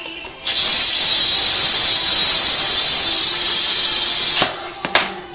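Compressed air from a homemade scrap-built compressor hissing loudly at a tyre valve as the air hose's chuck is pressed on. The steady hiss starts about half a second in, cuts off sharply after about four seconds, and is followed by a couple of clicks.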